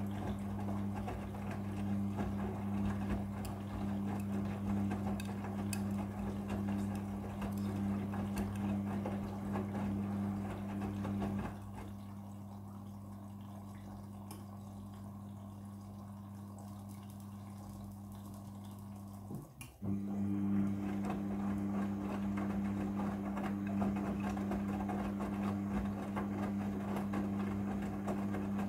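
Midea front-loading washing machine taking in water for the prewash: a steady hum with water rushing into the drum. About twelve seconds in, the hum and the flow drop to a lower, quieter sound. After a click about twenty seconds in, they come back as before.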